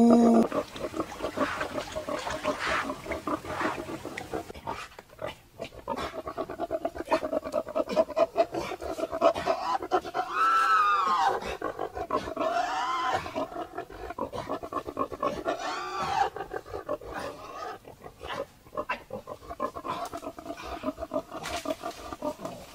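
A pig calling over and over; the loudest call, about ten seconds in, rises and falls in pitch.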